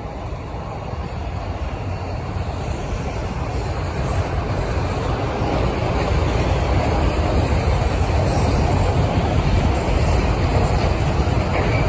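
Empty autorack freight cars rolling past on the track: a steady rumble of wheels on rail that grows gradually louder.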